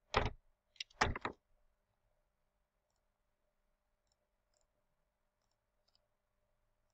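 A quick run of sharp clicks from a computer mouse and keyboard in the first second and a half, then only faint ticks.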